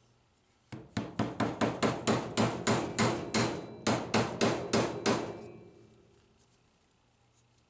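A rapid run of hammer blows, about five a second, on a vending-machine rotor or gearbox part during reassembly, with a short break partway and stopping a little after five seconds in.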